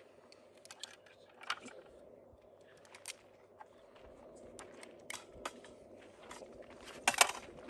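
Pistol cartridges being pressed one at a time into a handgun magazine: scattered light clicks, with a louder cluster of clicks near the end.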